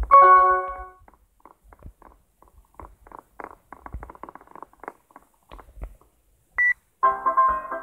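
A bright chime of several notes sounding together rings out at the start and fades within about a second. Faint irregular light tapping follows. Near the end a short high beep is followed by keyboard music starting up.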